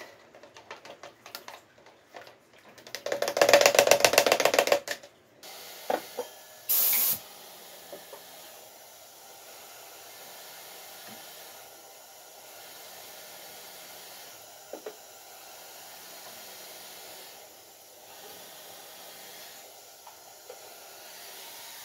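A stick stirring thinned two-pack paint in a plastic bottle clatters, loudest for a couple of seconds about three seconds in. Then a compressed-air gravity-feed spray gun gives a sharp burst of air and settles into a steady hiss as two-pack paint is sprayed onto a car's underside, the hiss pausing briefly every few seconds between passes.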